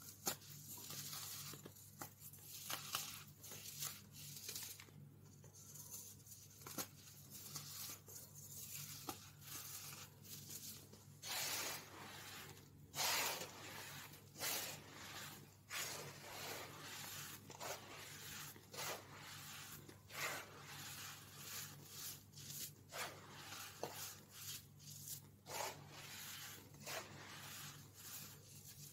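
Hands crushing, squeezing and rubbing baking soda powder and packed chunks, making soft, irregular crunches and gritty rubbing. A faint steady low hum runs underneath.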